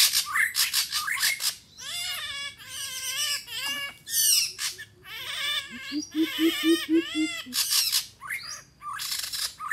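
Greater coucals calling: a run of about seven deep, evenly spaced hoots, quick at about five a second, a little past halfway, amid shrill, wavering bird calls throughout. This is the territorial hooting that a caged decoy coucal uses to draw in a wild one.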